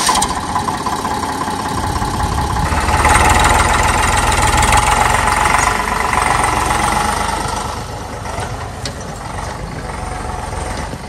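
JCB 3DX backhoe loader's diesel engine running under working load. It gets louder about three seconds in, holds for a few seconds, then eases back down.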